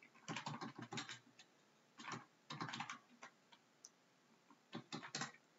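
Computer keyboard typing: several quick runs of keystrokes separated by short pauses.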